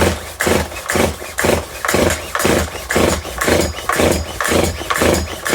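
Stihl MS181 chainsaw being pull-started on full choke: quick repeated yanks of the recoil starter cord, about two a second, with the engine turning over but not catching, a sign that the saw will not start.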